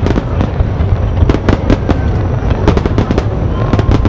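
Fireworks display at full intensity: a dense barrage of aerial shells bursting, with rapid overlapping bangs and crackle, several a second, over a steady deep rumble.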